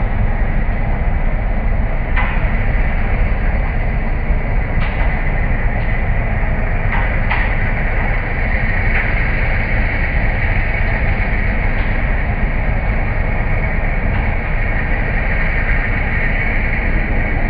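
Cold milling machine grinding up asphalt: a steady heavy rumble of the machine and its cutting drum, with a few short sharp knocks.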